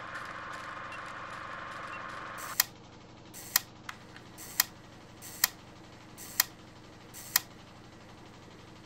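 A steady hiss that stops about two and a half seconds in, followed by six sharp, evenly spaced clicks about a second apart, each led by a softer click.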